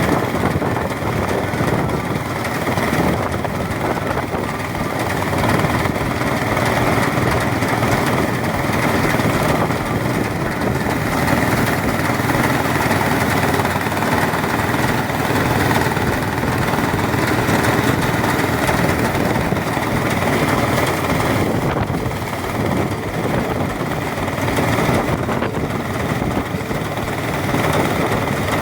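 Engine-driven rice threshing machine running steadily.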